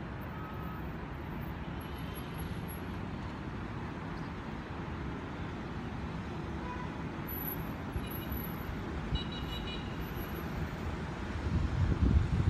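Steady distant city traffic noise. Near the end, louder irregular gusts of wind buffet the microphone.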